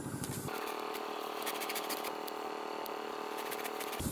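An engine running steadily at an even pitch, starting about half a second in, with a few faint clicks of scissors snipping the grass thatch.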